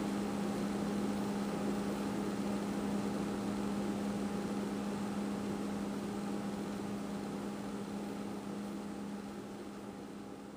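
Steady low electrical or appliance hum with an even hiss, holding one low pitch and slowly fading toward the end.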